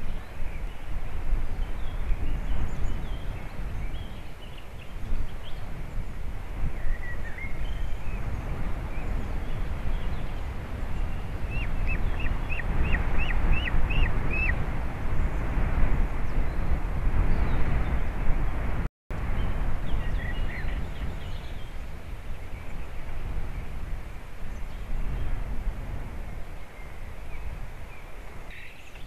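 Wind rumbling and buffeting on an outdoor microphone, with a quick series of about eight short, high calls a little before the middle, typical of white-tailed eagle nestlings calling. The sound cuts out for an instant about two-thirds of the way through.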